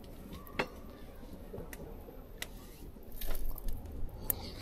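A person chewing food close to the microphone, with a few sharp clicks scattered through.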